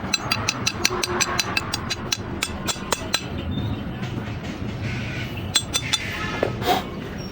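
Rapid sharp metallic taps, about four or five a second, over a steady mechanical noise. The taps thin out to a few scattered ones after about three and a half seconds.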